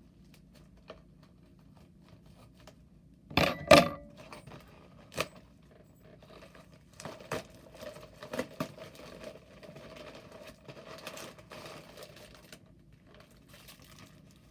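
A mail package being opened by hand: a couple of sharp knocks about three and a half seconds in, then a stretch of packaging crinkling and tearing with small clicks.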